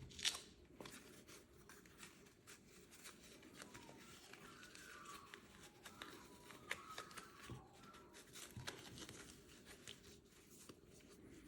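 Faint handling noises of an earpad being stretched and worked onto a 3D-printed plastic headphone cup: soft rustling with scattered small clicks and faint squeaks of the pad rubbing, after a sharp click just at the start.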